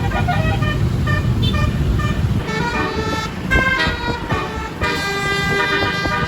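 Bus telolet horn (a Basuri multi-tone horn) playing a quick tune of changing notes over the low rumble of the bus engine and traffic; the horn tune comes in strongest about two and a half seconds in, with a brief break near five seconds.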